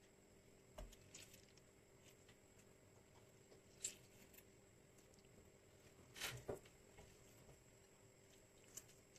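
Faint, sparse squishes and light taps of hands squeezing cooked cauliflower florets into patties over a stainless steel colander, the loudest pair about six seconds in.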